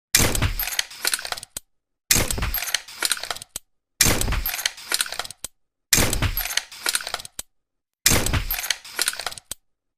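Tranquilizer pistol sound effect: a shot with a low thud that fades over about a second, followed by a couple of sharp clicks. It repeats five times, about every two seconds, with dead silence in between.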